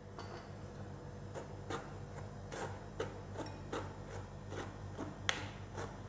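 Metal spoon scraping and tapping against a stainless-steel mesh sieve as wheat flour is worked through it: soft, faint scrapes about two or three times a second, with one sharper tick about five seconds in.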